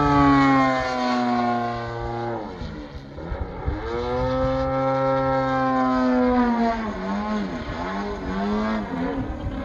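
Radio-controlled model airplane's engine buzzing overhead, its pitch sliding down in the first two seconds, dropping away briefly, then coming back and falling again. Near the end the note wavers and dips repeatedly as the plane manoeuvres.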